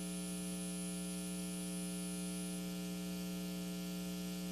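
Steady electrical mains hum with several overtones and a faint hiss underneath.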